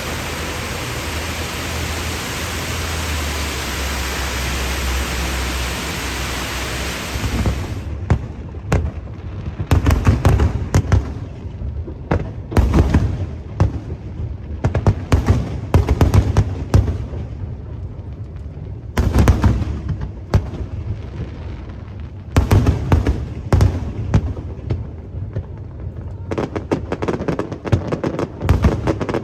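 A steady hiss for the first seven or eight seconds that cuts off abruptly, then aerial fireworks shells bursting in rapid clusters of sharp booms and crackles, each with a low rumbling echo.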